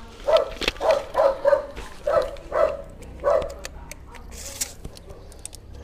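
A dog barking repeatedly, about seven barks in the first three seconds, then it falls silent.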